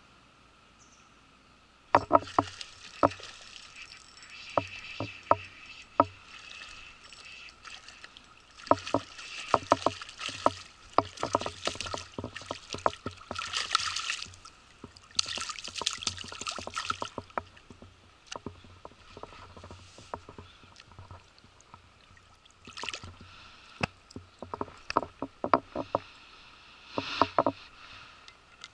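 Splashing and sloshing in shallow river water as a hooked chub is brought to hand, the loudest splashes coming about halfway through, with irregular sharp knocks and clicks from handling throughout.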